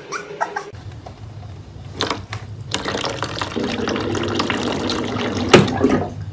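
Water dispenser tap running as a cat pushes its lever, water splashing into the drip tray, with two sharp clicks, about two seconds in and near the end, the later one loudest.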